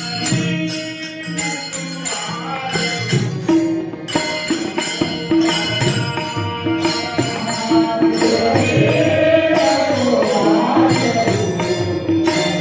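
Music for a Marathi devotional gavlan: a steady percussion rhythm with jingling strokes under a sustained pitched accompaniment. A melodic line with gliding pitch comes in about eight seconds in.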